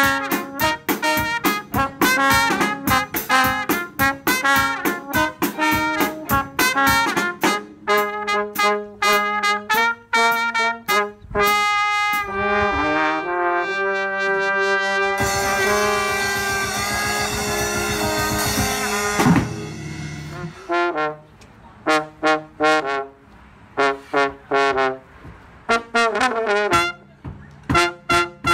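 Live brass combo: marching baritone and trumpet playing short, punchy riffs over a drum kit. In the middle they hold a long chord under a cymbal wash, then go back to sparse stabs.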